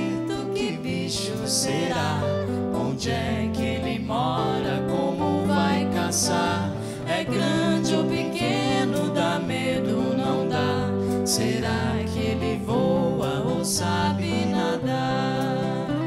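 A band playing a song live: guitars strumming over a steady bass line with drums and cymbals, and voices singing.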